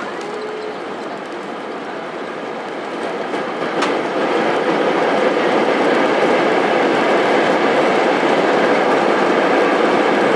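Inside an airliner cabin during landing: a steady rush of engine and wheel noise that swells sharply about four seconds in and then stays loud, as the jet touches down and rolls out on the runway.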